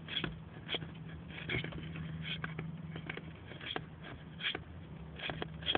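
Turtle's claws scratching and clicking against the inside of a bucket as it tries to climb out: faint, irregular clicks a few times a second over a low steady hum.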